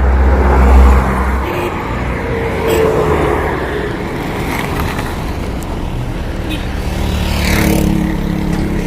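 A car driving along a road, with steady engine rumble and road noise. There is a louder swish about seven and a half seconds in.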